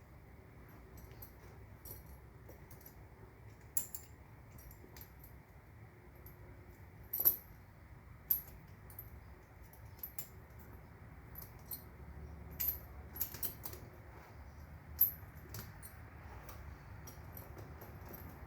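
Steel tire chain links clinking and jingling in short, irregular clicks as the chain is handled and fastened around an ATV tire.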